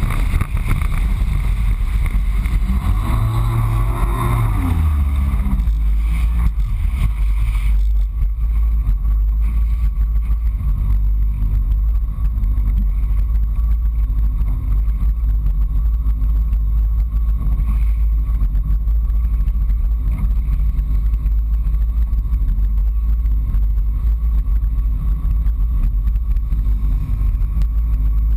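Yamaha FX HO Cruiser jet ski's engine running under way, its note falling about four seconds in; near eight seconds the higher rushing sound stops abruptly, leaving a steady low drone.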